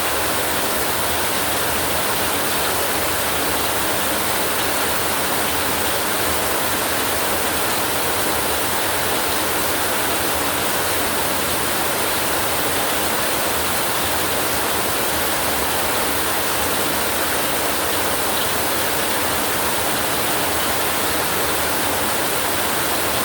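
Heavy rain falling steadily, an even unbroken hiss with no thunder claps.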